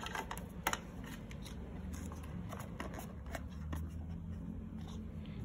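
Phone box and packaging being handled: a few light clicks and rustles, the sharpest within the first second, over a steady low hum.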